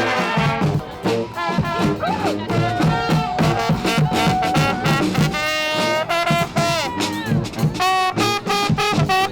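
Honk street band of brass and percussion playing: several horns carrying a melody over a repeating bass line and drum hits.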